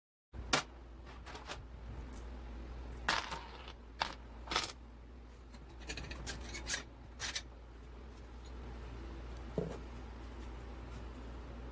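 Metal engine parts clinking and tapping against each other: about a dozen sharp clinks with a brief high ring, then a duller knock near the end, over a steady low hum.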